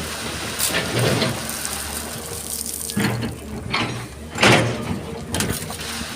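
Excavator engine running steadily under several short, gritty rushes of wet sand and gravel sliding and scraping in the bucket, the loudest about four and a half seconds in.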